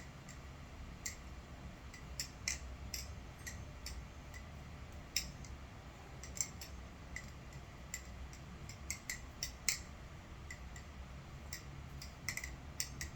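Titanium butterfly knife (NRB SLight balisong) being flipped: irregular sharp clicks of the handles and latch meeting, a few a second, with a barely noticeable ring from the handles.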